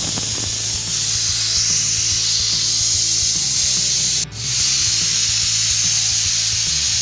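Aluminium stovetop pressure cooker whistling: steam hisses loudly out from under the weight valve, breaks off for a moment about four seconds in, then hisses on again. The steam is escaping because the pressure inside has built up during cooking.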